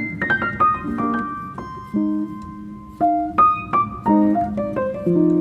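Background piano music: a quick falling run of notes, then slower single notes over low chords.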